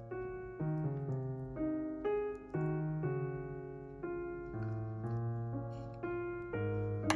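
Background music: a slow, gentle piano piece, notes and chords struck about once or twice a second and left to ring and fade.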